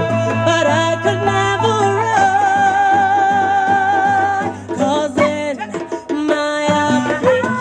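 Marimba band playing, several wooden marimbas struck with mallets, under a woman's lead vocal holding long, wavering notes without clear words. The music drops back briefly about five seconds in, then picks up again.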